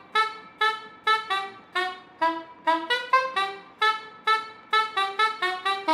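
A saxophone tune of short, detached notes, about three a second, ending on a note that slides down in pitch.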